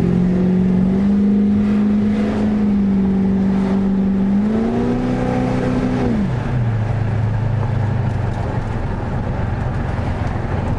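The cammed 5.7-litre LS1 V8 of a 1999 Holden R8 Clubsport under way, exhaust note steady at cruising revs. The revs climb briefly, then fall sharply about six seconds in and settle to a lower, steady note.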